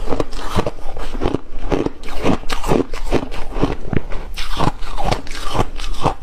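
Close-miked crunching of refrozen shaved ice being bitten and chewed, a steady run of short, crisp crunches, about two to three a second.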